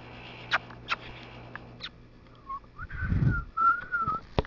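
A person whistling to call a cat: a few short, wavering whistled notes in the second half, after a few faint clicks. A low thump of handling comes about three seconds in.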